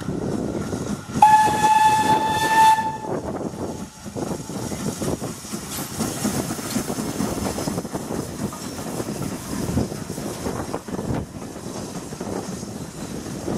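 A BR Standard 4 2-6-4T steam tank locomotive sounds a single steady whistle for nearly two seconds, about a second in. It then works past with its exhaust and steam hissing, and the coaches run by behind it.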